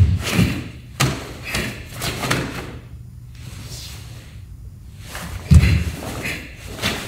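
Karate kata performed barefoot on a wooden floor: a heavy thud as the feet plant into horse stance at the start and another about five and a half seconds in, with sharp snaps of the gi on blocks and punches in between.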